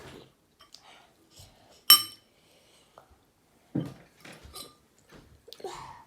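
Tableware clinking during a noodle meal: one sharp, ringing clink about two seconds in, with softer knocks and scrapes around it.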